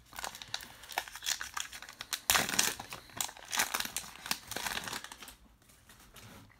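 A baseball card pack wrapper being torn open and crinkled: a run of dense crackles that dies away near the end.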